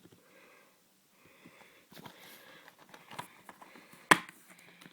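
Faint rustling and handling of a plastic Blu-ray case close to the microphone, with small ticks and one sharp click about four seconds in.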